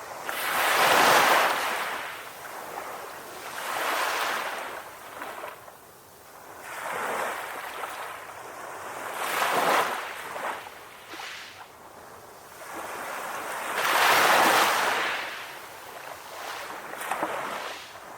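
Sea waves breaking on a beach and washing back, coming in slow surges every few seconds, each swelling up to a rushing peak and fading away.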